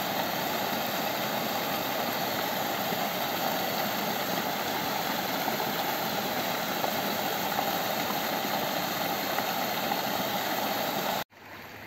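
Water gushing from a stone spillway and splashing into a pool below, a steady, even rush. It drops away suddenly near the end to a fainter rush.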